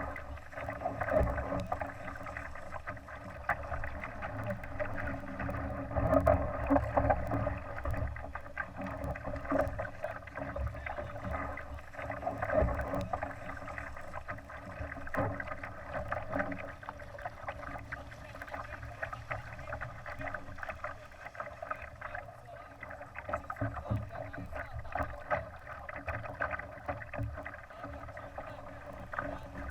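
Water rushing and slapping along the hull of a Laser sailing dinghy under way, in uneven surges, over a low rumble.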